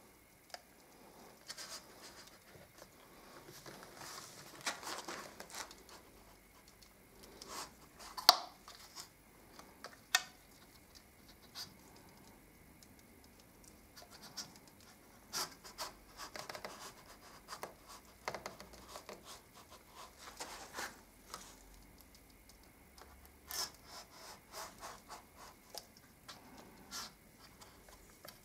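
Flat iron being slid and pressed over glued wood veneer, giving quiet, irregular scraping with scattered light clicks and knocks, the sharpest about eight seconds in. The heat and moisture are re-softening bone glue so an overlapping double-cut veneer strip can be lifted.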